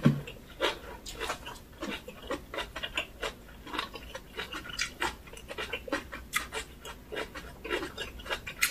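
Close-miked chewing of aged-kimchi rice wraps: short, irregular mouth sounds several times a second.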